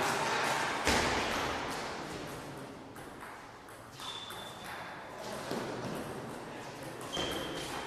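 Table tennis ball struck by the players' bats and bouncing on the table during a rally: a series of sharp clicks, a second or so apart, echoing in a large sports hall.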